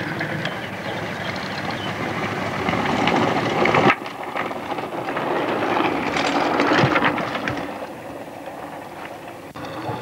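Mountain bike coming down a loose, rocky dirt track past the camcorder: tyres crunching on gravel and the bike rattling, swelling as it nears and then fading. The sound breaks off sharply about four seconds in.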